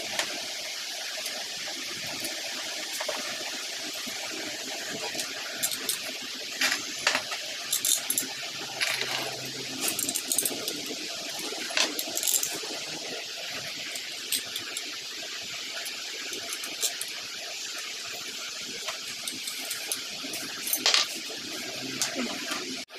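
Light metallic clinks and taps as a steel TV wall-mount bracket and its bolts are handled against a wall, scattered through the middle and again near the end, over a steady hiss.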